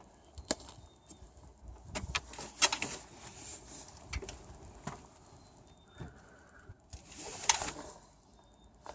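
Scattered light clicks, taps and rustling of hands working along rubber coolant hoses and plastic parts in a car's engine bay, feeling for a leak, with a longer rustle near the end.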